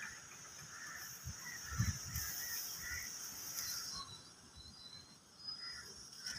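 Outdoor ambience: a steady high insect drone that drops away about four seconds in, with scattered bird chirps throughout. A few low thumps come from footsteps and handling of the phone, the loudest about two seconds in.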